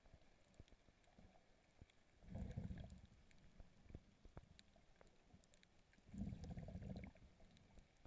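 Muffled underwater sound picked up by a camera in a waterproof housing: two low rumbling whooshes of water about four seconds apart, with faint scattered clicks between them.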